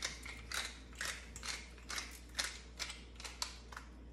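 Hand-twisted pepper mill grinding peppercorns: a run of short crunching clicks, about three a second, as the top is turned back and forth.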